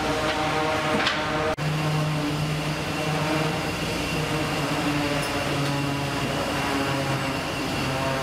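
Fish-processing line machinery and conveyors aboard a ship, running with a steady hum of several held tones, with a momentary drop-out about one and a half seconds in.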